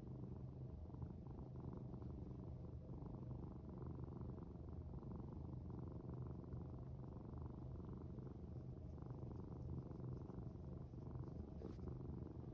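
A domestic cat purring steadily and without a break, a low, continuous rumble.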